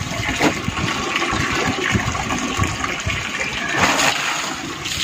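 Tap water running into a plastic bucket of soapy water while jeans are hand-washed in it, with water splashing and pouring off the cloth as it is dunked and lifted out.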